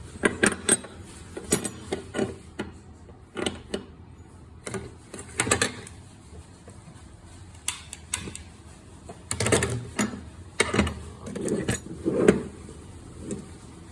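Irregular clicks, knocks and clinks of small metal gas-stove parts being handled and fitted, some knocks ringing briefly, with a cluster of louder knocks about ten seconds in.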